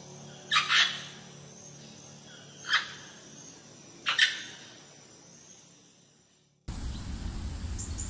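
Parrot squawking: harsh short calls, two together about half a second in, one near three seconds and two more just after four seconds. About two-thirds of the way through, the sound cuts abruptly to a steady outdoor rushing noise.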